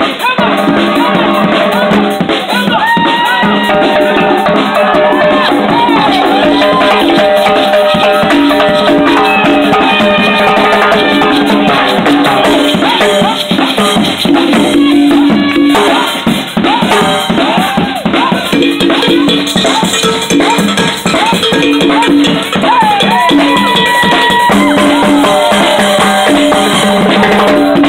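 Drum circle: djembes and conga drums played by hand in a busy, steady rhythm, with rattling percussion and voices calling out over it.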